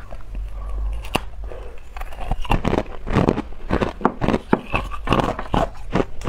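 Hard clear ice being bitten and chewed close up: a rapid, irregular series of sharp crunches and cracks, over a steady low hum.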